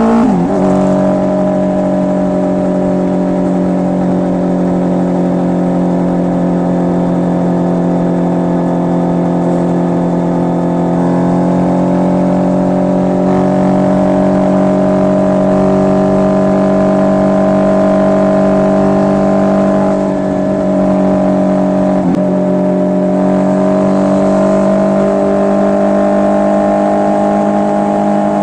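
Honda CB650R inline-four engine through an SC Project full exhaust, running at steady revs for long stretches. Its pitch drops sharply right at the start, dips briefly about twenty seconds in, and climbs a little near the end.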